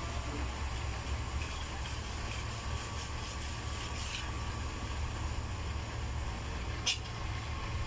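Hand-held hot-air plastic welding gun running steadily with a constant hum while heat-welding a PVC waterstop joint. A single short tick near the end.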